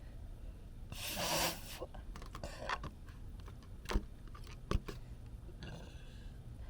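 A rubber balloon being handled and blown into: a short breathy rush about a second in, then two sharp clicks less than a second apart near the middle.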